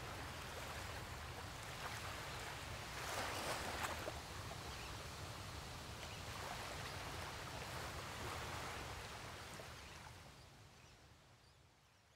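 Small waves washing against shoreline rocks, a soft steady hiss that swells and eases, with a low rumble underneath; it fades out over the last two seconds.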